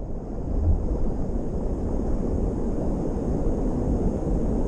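Steady low rumbling rush of wind buffeting the microphone, mixed with the noise of a creek running high in spring thaw.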